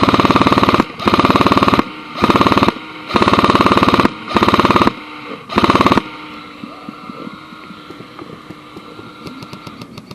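Airsoft rifle firing on full auto in a string of short bursts, about six in quick succession, stopping about six seconds in. Afterwards faint rapid ticking comes in near the end.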